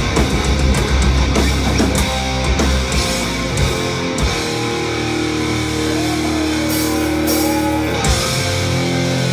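Live heavy metal band playing: distorted electric guitars, bass and drums. About four seconds in the bass and drums drop back and held notes ring on.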